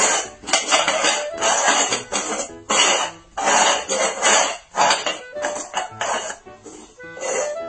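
Upturned bowls being slid back and forth across a concrete floor: a quick run of short scraping sounds, about two a second, over faint background music.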